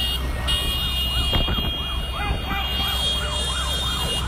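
A siren yelping rapidly up and down, about three sweeps a second, over a steady din of street noise. There is one sharp knock about a second and a half in.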